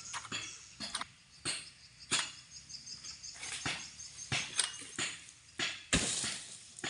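Long-poled harvesting sickle hacking at the frond bases and fruit bunch of a tall oil palm: a string of irregular sharp cutting strikes, with a longer rustling burst about six seconds in.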